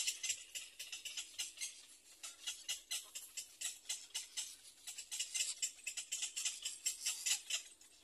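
Little egret chicks begging for food: a rapid, irregular run of high, dry ticking calls, easing briefly about two seconds in.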